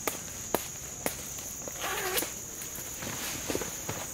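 A denim vest being taken off: its front fasteners clicking open one after another, then fabric rustling as it comes off, with a few more clicks near the end. A steady high insect chorus buzzes underneath.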